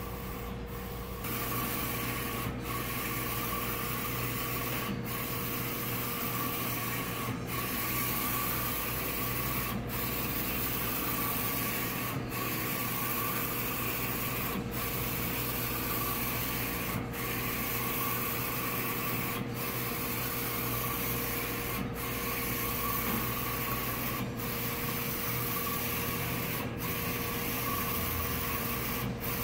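Roland Soljet Pro III XC-540 54-inch printer/cutter printing: a steady mechanical running sound with a constant hum, broken by a short dip about every two and a half seconds.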